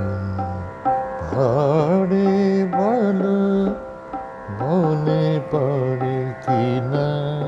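A man singing a Bengali khayal in raag Nupurdhwani, with held vowel notes broken by fast wavering ornaments, over a steady drone.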